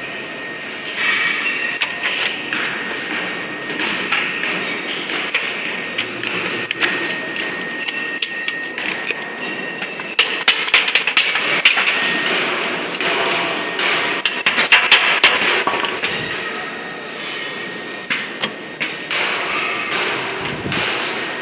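Thin steel strips of a transformer wound core being handled and pressed around a core form: metallic rustling and clattering with taps and knocks, densest about ten seconds in and again around fifteen seconds. A faint steady high whine runs under the first part and returns near the end.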